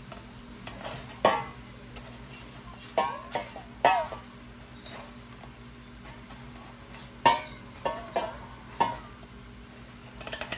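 Stainless-steel bowl clanking against a frying pan as boiled glass noodles are tipped out of it into the pan. About ten separate metallic knocks with short ringing, irregularly spaced.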